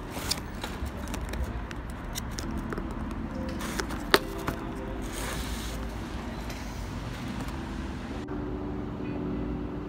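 Steady street traffic rumbling, with a sharp tap about four seconds in.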